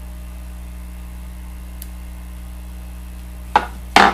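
Two sharp snips of scissors near the end, about half a second apart, cutting the butts of the hackle wing feathers at the fly's head, over a steady low hum.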